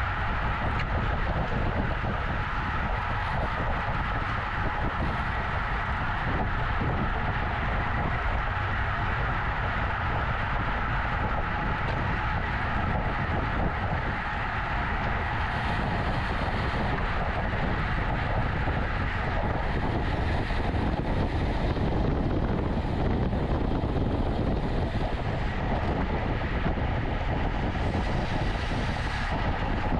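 Steady wind rush over the microphone of a camera on a road bike ridden at race speed, with a constant rolling rumble of road noise underneath.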